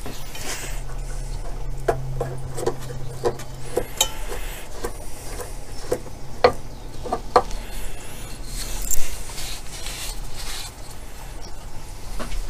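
Handling noises as a spiral-cut oak workpiece is released from a CNC rotary axis: the tailstock handwheel being wound back, with scattered clicks and knocks of metal and wood. The sharpest click comes about nine seconds in. A steady low hum runs underneath.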